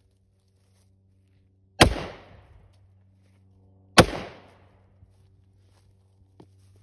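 Two gunshots about two seconds apart, fired from close range at a test armor plate. Each is a sharp crack that dies away over about a second.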